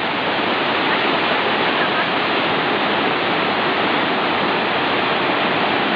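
Waterfall cascading over boulders: a steady, full rush of falling water.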